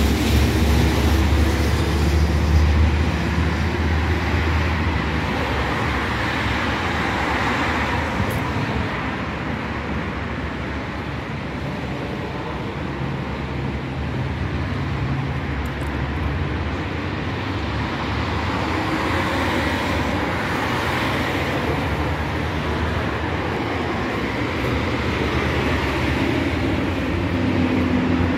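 Steady road traffic: cars driving along the street, with a heavier low rumble in the first few seconds.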